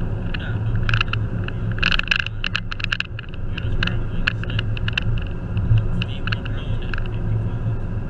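Car cabin noise while driving: a steady low engine and road hum, with frequent irregular sharp ticks and rattles over it.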